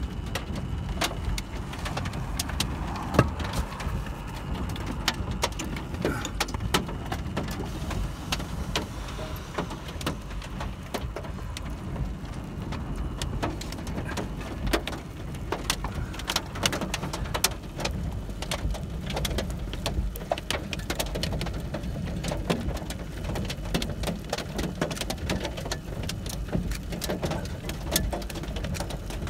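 Scattered raindrops ticking irregularly on a car, over a steady low rumble from the vehicle.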